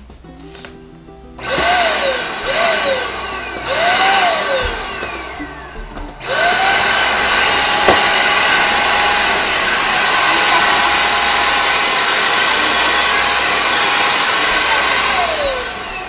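Corded Vytronix 3-in-1 stick vacuum cleaner switched on and straight off three times, its motor whine rising and sinking each time. It is then run steadily at a constant pitch for about nine seconds and winds down near the end.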